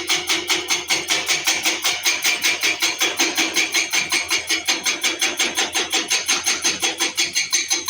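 A powered road-work machine pounding steadily, with rapid, evenly spaced strikes at about six a second.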